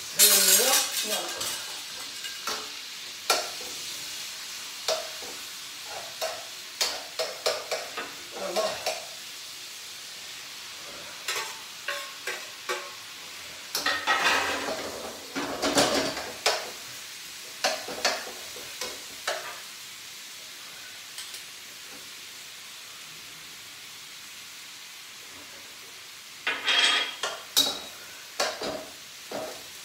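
Chicken and vegetables stir-frying in a wok on a gas hob: a steady sizzle under irregular scrapes and clatters of a utensil against the pan, with a louder burst of clatter near the end.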